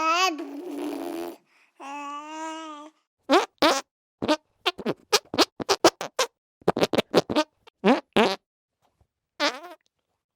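Fart sound effects in quick succession: two buzzy, pitched farts of about a second each, then a rapid string of many short sputtering farts, and one last short one near the end.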